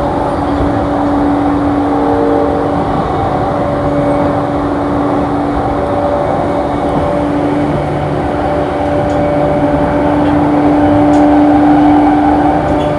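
JR East E235 series electric train running at a steady speed: continuous running rumble with steady humming tones from the drive, swelling slightly near the end.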